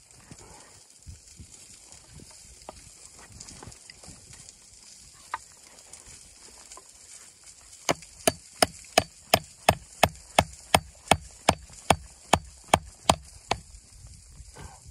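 Hatchet chopping into a wooden plank: about sixteen quick, sharp strikes at a steady rate of roughly three a second, starting about halfway through and stopping shortly before the end. Before them, only faint handling of the wood and one lone knock.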